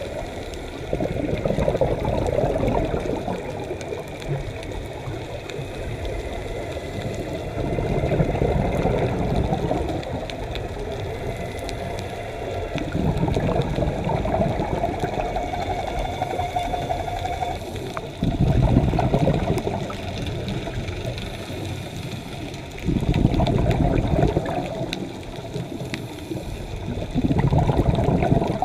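Scuba diver's breathing heard underwater through the regulator: exhaled bubbles rumble out in loud bursts about every five seconds, quieter between breaths.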